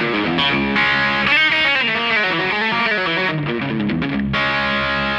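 Fender Stratocaster electric guitar played through a breadboarded DIY Tube Screamer overdrive circuit built around a 4558 op-amp, giving a distorted tone. He plays a lead line of single notes with string bends through the middle, then lets notes ring near the end.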